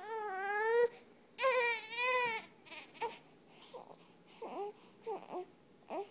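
Infant crying: two long wavering wails in the first two and a half seconds, then a few short, fainter whimpering cries.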